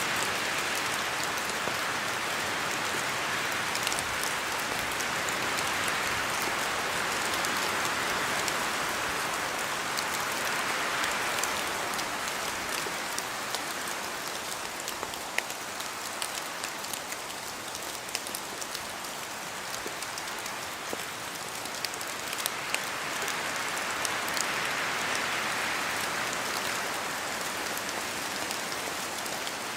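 Steady rain falling in a spruce forest, with drops falling from the trees as scattered sharp hits. A wind-like rush through the trees swells and eases, strongest early on and again near the end.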